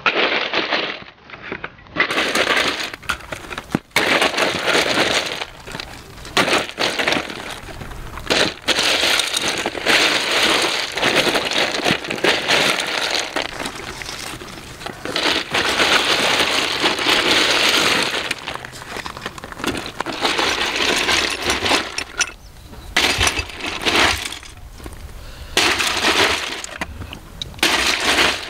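Ice cubes clattering and crunching in a canvas bucket cooler as cans and glass bottles are pushed down into them, in irregular bursts with clinks of glass.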